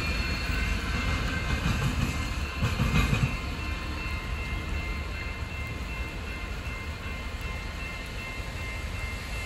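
Norfolk Southern diesel freight train running on the track: a steady low rumble, louder for the first three seconds or so, then settling to a quieter steady rumble.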